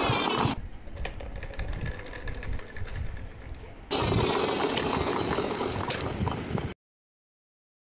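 Plastic wheels of a large toy car rolling and rattling over a hard marble floor as it is pushed along, a rough rumble with small clicks that grows louder about four seconds in and cuts off suddenly near the end.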